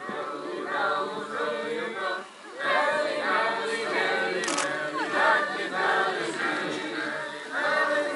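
A group of voices singing together, unaccompanied, with a short break about two and a half seconds in.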